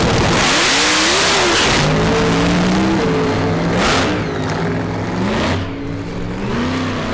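Supercharged drag racing doorslammer launching and accelerating hard away down the strip. A loud blast of hiss comes about half a second in. The engine note then climbs and drops back in steps through its gear changes, and it fades as the car pulls away.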